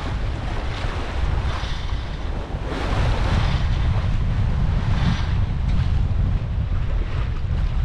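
Wind buffeting the microphone over the rush of sea water along the hull of a sailing yacht under way. The water swells louder about three seconds in and again about five seconds in.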